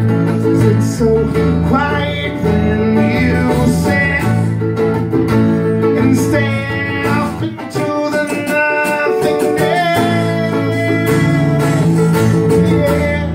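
Live acoustic band music: strummed acoustic guitars playing chords, with a sung melody line over them.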